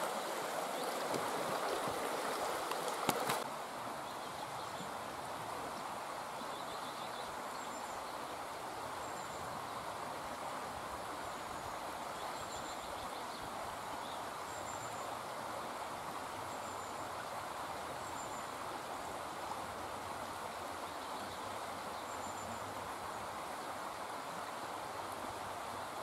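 Steady outdoor rushing noise, with faint, thin, high-pitched bird calls every couple of seconds. The rushing is louder for the first three seconds and ends there with a single knock.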